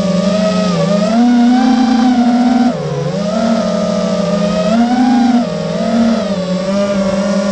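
Brushless T-Motor motors and propellers of a QAV-X FPV quadcopter whining, heard from the craft's own camera. The pitch rises and falls with the throttle, with a sharp dip about three seconds in and another about five and a half seconds in.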